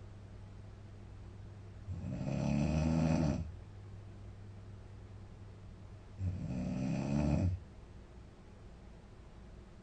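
A young woman snoring in her sleep: two long, pitched snores, each lasting about a second and a half, about four seconds apart.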